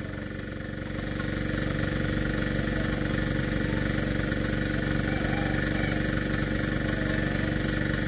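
An engine idling steadily at an even, unchanging pitch.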